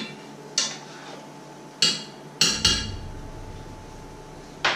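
A spoon knocking and clinking against a cooking pan as food is stirred: six sharp knocks at uneven intervals, each with a brief ring, two of them in quick succession about halfway through.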